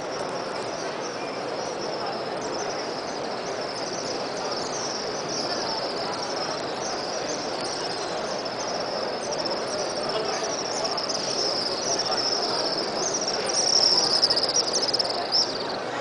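A flock of swifts screaming: a dense, unbroken chatter of short, high, falling shrill calls, growing louder near the end, over the low murmur of a large crowd.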